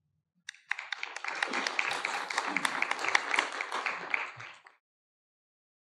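Audience applauding: a round of hand clapping that starts about half a second in, builds, and fades out after about four seconds.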